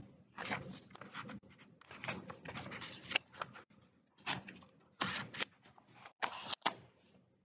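Paper rustling in irregular bursts as sheets of a bid document are handled, with a few short, sharp crinkles near the end.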